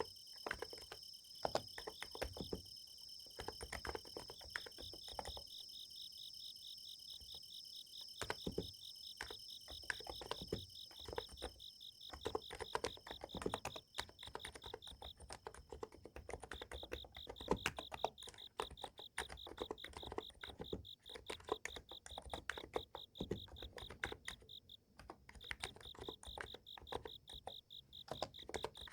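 Typing on a Niz Plum x108 electrostatic capacitive keyboard: irregular key strokes at a steady typing pace, over the continuous high-pitched trilling of summer-night insects.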